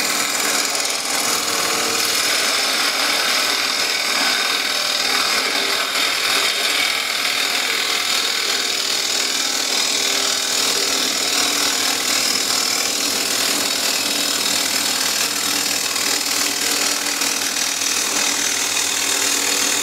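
Bowl gouge, freshly sharpened on a CBN wheel, taking a continuous shear cut on the outside of a wooden bowl spinning on a wood lathe. A steady hiss of shavings peeling off runs over the lathe's steady hum, and the clean, even cut shows a sharp edge.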